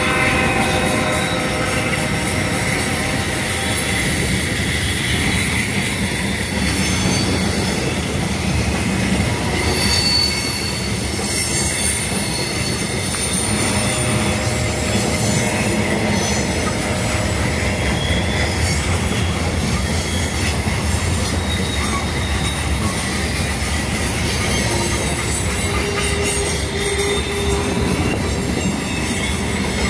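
Loaded covered hopper cars of a freight train rolling past on a curve: a steady rumble of steel wheels on rail with high-pitched wheel flange squeal.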